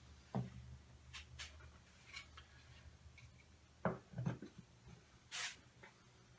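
Faint handling sounds on a wooden workbench: a light knock, then a close pair of wooden knocks around four seconds in as a maple plywood side panel is set against the toolbox, and a short rubbing hiss a little later.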